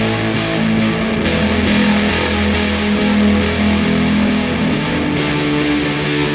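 Fender electric guitar strummed through distortion and effects pedals: a loud, dense wash of held chords in a shoegaze style, the chord changing about a second in and again near the end.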